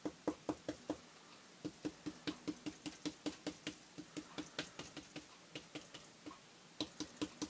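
Paintbrush dabbing paint through a plastic stencil onto a journal page: runs of light, quick taps, about five a second, with a short pause after the first second and another around six seconds in.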